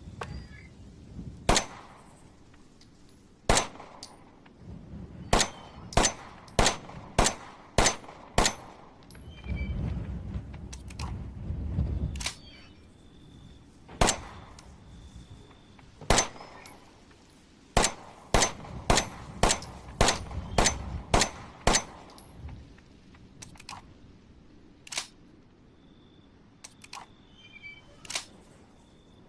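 Glock 17 9mm pistol firing: single shots a couple of seconds apart, then two strings of six to eight quick shots, each with a short metallic ring, then a few fainter scattered shots. A low rumble swells briefly between the strings.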